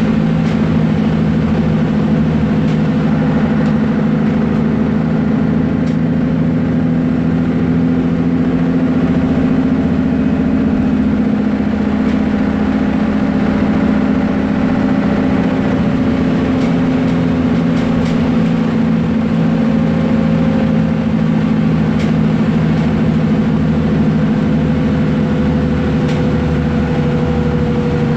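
Diesel engine of a Mercedes-Benz Citaro O530G articulated bus running steadily, its pitch easing down slightly toward the end, with a few faint clicks and rattles.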